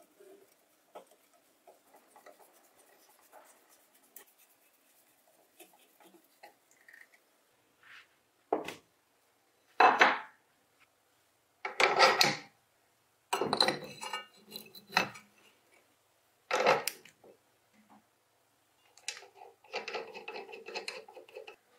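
Hand-handling of bench grinder parts and grinding wheels on a wooden workbench: faint small clicks and rubs, then several loud, short knocks and clatters as wheels and metal parts are set down and picked up. Near the end comes a rattling scrape as a grinding wheel and its flange are fitted onto the spindle.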